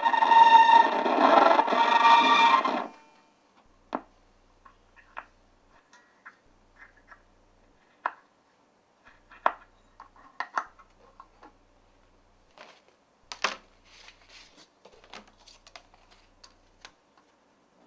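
Music with electric guitar playing from a portable suitcase record player, cut off abruptly about three seconds in. Then scattered light clicks, knocks and rubs as the records and the player are handled.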